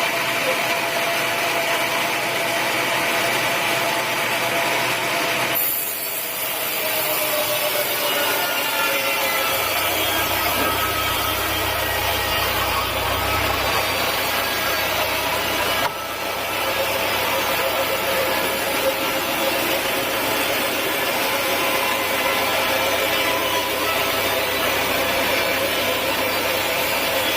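Sawmill saw running steadily while cutting through a teak log, with a constant machine drone and shifting whining tones from the blade. The sound changes abruptly twice along the way.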